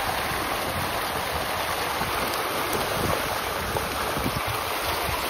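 Water churning and splashing steadily as a dense crowd of fish thrashes at the surface.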